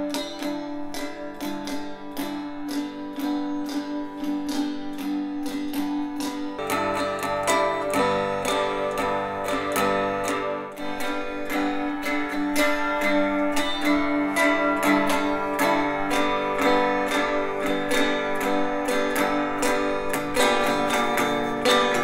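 A recording of a guitar being strummed in a steady rhythm, played back first through an L-Acoustics MTD108 loudspeaker and then, about six and a half seconds in, through a homemade four-way multi-directional speaker, where the sound gets fuller, with more bass.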